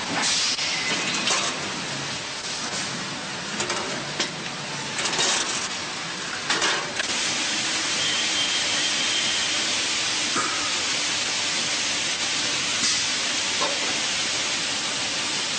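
Machining-line noise around engine cylinder blocks on a transfer line: a steady hiss with a handful of sharp metallic knocks in the first seven seconds, then an even hiss.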